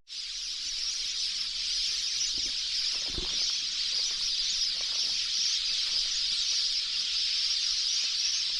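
Steady, high-pitched insect chorus, a continuous even shrill with no breaks or rhythm.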